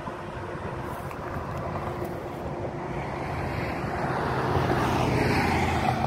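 Highway traffic going by: tyre and engine noise of passing cars, growing louder over the last few seconds as a vehicle comes closer.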